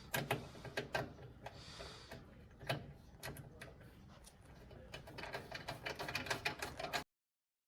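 Scattered small metallic clicks and ticks of a screwdriver driving a screw into a motherboard standoff, quickening into a dense run of clicks near the end before the sound stops suddenly.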